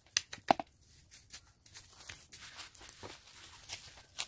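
Leafy herbs being torn and handled, a crisp rustling and tearing with a couple of sharp clicks near the start.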